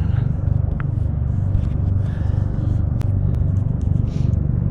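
Wind buffeting the microphone: a steady, uneven low rumble with a few faint clicks over it.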